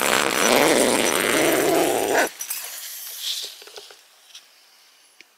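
A tent door zipper is pulled open in one long, loud rasp of about two seconds that stops abruptly. It is followed by a few faint rustles and clicks that die away.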